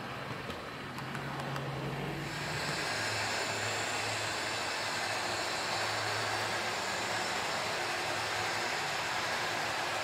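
H0-scale model trains running on a layout: a low motor hum with light ticking in the first two seconds, then a steady, louder rolling noise of wheels on the track from about two seconds in.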